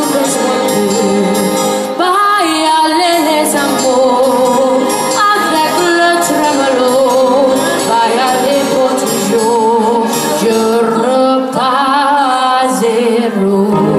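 A teenage girl singing a song with vibrato on her held notes, over an instrumental accompaniment.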